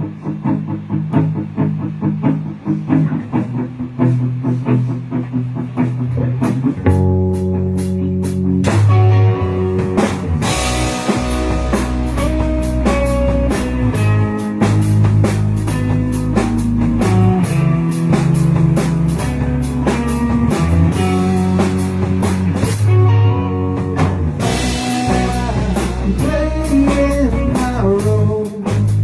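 Instrumental rock music: electric guitar, bass and drum kit, starting sparse and building into the full band about seven seconds in.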